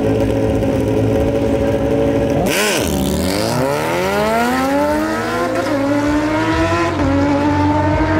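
Drag-race car engine at full throttle: the note holds steady, then about two and a half seconds in there is a burst of noise as the pitch dips sharply and recovers, and the engine note then climbs steadily for several seconds as the car accelerates.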